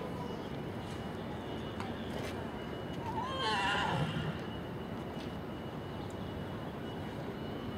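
A pony whinnies once, a wavering call lasting about a second, about three seconds in, over steady background noise.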